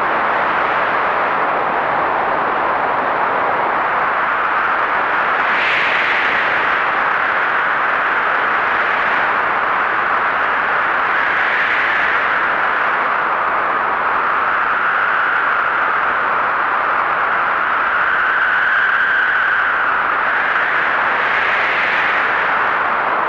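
Heavy blizzard wind blowing steadily as a loud rushing hiss, with gusts that swell and whistle higher several times, about six seconds in, around twelve seconds, and again near the end.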